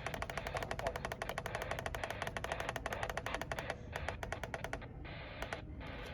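Static from an AM radio tuned off-station: a rapid, evenly spaced ticking of interference over hiss, which breaks up about four seconds in and leaves a steady hiss. No station is coming through on 830 AM.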